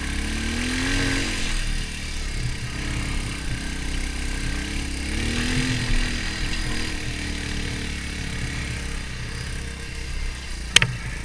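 Beta Alp 200's single-cylinder four-stroke engine running under way, revving up and back down twice. A single sharp knock sounds near the end.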